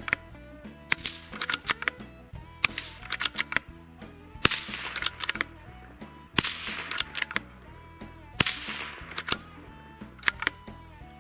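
Suppressed .22 LR pistol shots from a Walther PPQ 22 through an AAC Element 2 suppressor, a string of sharp cracks with action clicks. Three louder shots with a hissing tail come about two seconds apart in the second half, matching the supersonic rounds. Background music plays underneath.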